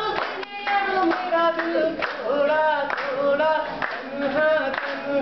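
A group of people singing a song together unaccompanied, with hand claps about twice a second.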